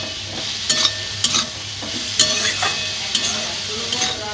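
Chopped vegetables sizzling in hot oil in a kadai while a spatula stirs them, scraping and knocking against the pan about five times at irregular moments.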